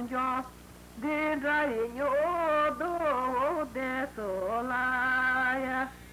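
A single voice singing without accompaniment, in short melodic phrases. There is a brief pause about half a second in, and a long held note near the end.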